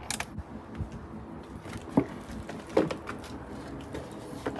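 Scattered knocks and clicks of hard plastic engine-bay parts being handled and fitted, with sharper knocks about two and three seconds in and again near the end.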